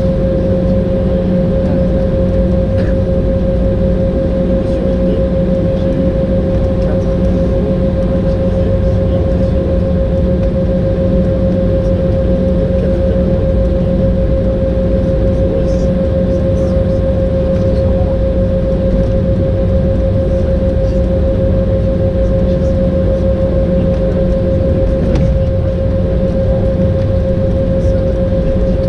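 Cabin noise of an Embraer 190 airliner taxiing on its GE CF34 turbofans: a steady low rumble with a constant mid-pitched whine.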